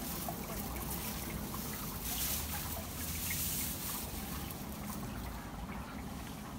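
Rustling and swishing of tall reeds and grass stems as a person pushes through them, louder and brighter from about two to four seconds in.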